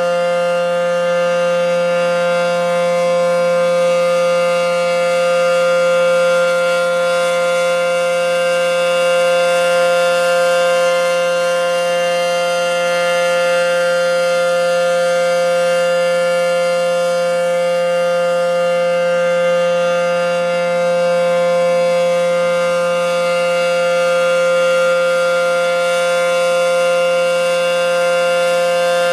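ACA P-10 outdoor warning siren sounding a steady alert tone during a full siren test. The tone holds one pitch with many overtones, swelling and easing slightly in loudness every few seconds.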